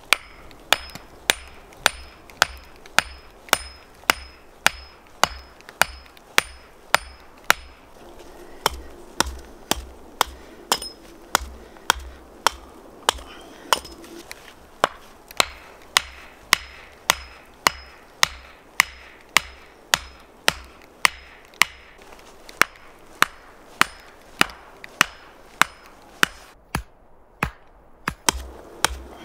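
An axe knocking pointed wooden stakes into the ground: sharp wooden knocks at a steady pace of about two blows a second.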